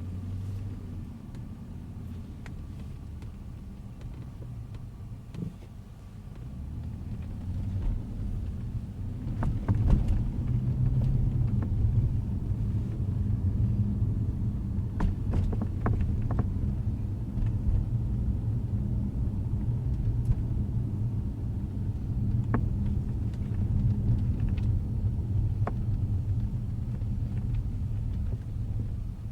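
2012 Jaguar XJ driving, a steady low road rumble that grows louder about a quarter of the way in, with sharp pops from the sunroof every few seconds, in clusters around the middle. The popping is a fault that persists after several dealership repairs.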